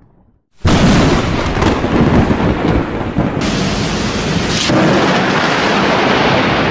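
Thunder rumbling through heavy rain, starting abruptly about half a second in and staying loud.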